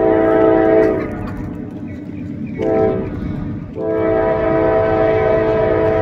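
Norfolk Southern diesel locomotive's air horn sounding the grade-crossing signal: a long blast that ends about a second in, a short blast, then another long blast starting a little before the end. A steady low rumble lies underneath.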